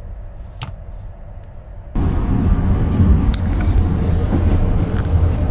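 Passenger train running, heard from inside the carriage: a steady low rumble with occasional sharp clicks and knocks. About two seconds in it becomes abruptly much louder and rougher.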